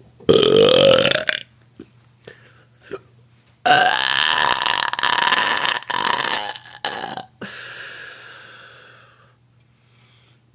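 A woman belching loudly twice: a short burp of about a second whose pitch rises, then a long burp of about three and a half seconds that trails off.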